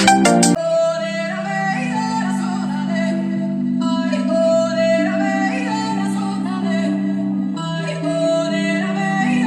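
Music playing through a boAt Stone portable Bluetooth speaker during a sound-quality test. A thumping electronic beat cuts off about half a second in, giving way to held synth-like chords and a wordless vocal line.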